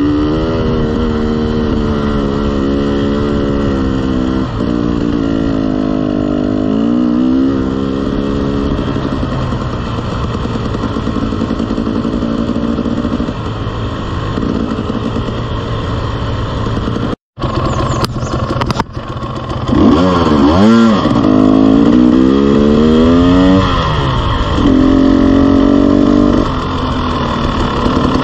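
Dirt bike engine running under way on a dirt trail, its pitch rising and falling again and again as the throttle is worked through the gears. The sound breaks off briefly about 17 seconds in, and the engine runs louder after it.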